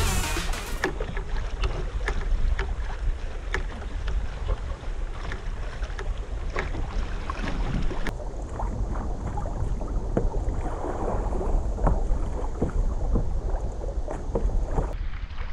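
Wind buffeting an action camera's microphone on a sit-on-top fishing kayak at sea, a steady low rumble, with water lapping and slapping against the hull in many short sharp ticks.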